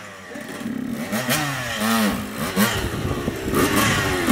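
85cc two-stroke dirt bike engine revving up and down several times as the throttle is worked while the bike pulls away, the rear wheel spinning in the dirt.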